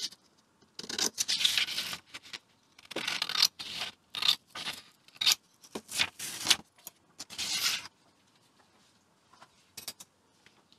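Scissors cutting a shape out of a sheet of paper, with the paper rustling: about six stretches of cutting, stopping about eight seconds in.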